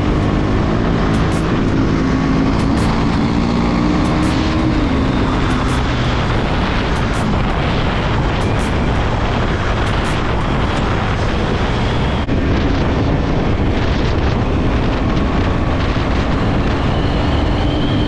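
Heavy wind rush over the microphone of a motorcycle riding at highway speed, with the KTM Duke 390's single-cylinder engine running underneath; the engine note drops about four to five seconds in.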